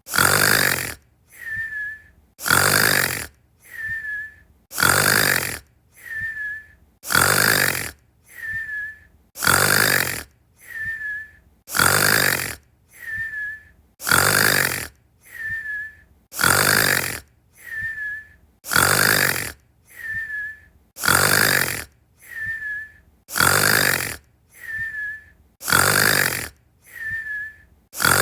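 Looped snoring sound effect: a loud snore, then a softer breath out ending in a short high whistle, repeating evenly about every two and a quarter seconds.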